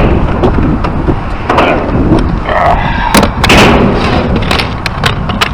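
A series of sharp clacks and knocks over a steady low rumble, the loudest cluster a little over halfway through.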